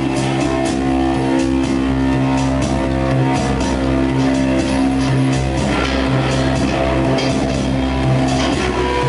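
Live band playing loud rock music: electric guitar and electronics over drums, with long held low notes and a steady beat.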